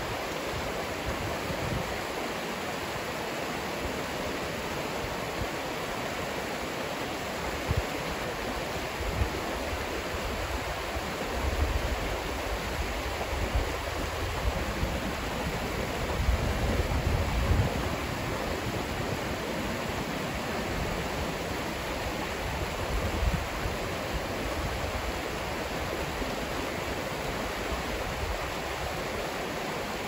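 River rapids rushing over rocks: a steady, even rush of water, with a few low rumbles, the strongest a little past halfway.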